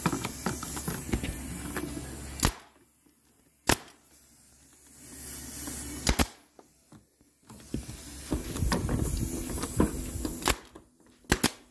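Central Pneumatic air stapler firing staples into the RV's roof deck along the front edge, one sharp shot at a time, a few seconds apart, with a hiss between shots.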